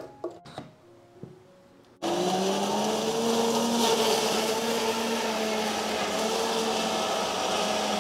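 Electric blender switching on abruptly about two seconds in and running steadily at full speed, a loud whirring with an even motor hum, grinding ginger and garlic. A few light clicks come before it starts.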